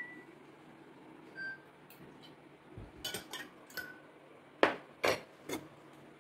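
Dishes and utensils clinking and knocking on a table: scattered single clinks, a few of them ringing briefly, with two louder knocks in the second half.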